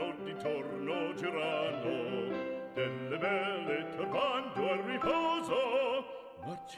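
Background music: operatic singing with a wavering vibrato over instrumental accompaniment.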